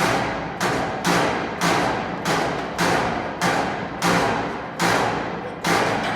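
A series of about nine sharp strikes, one every half to three-quarters of a second, each dying away before the next, stopping near the end.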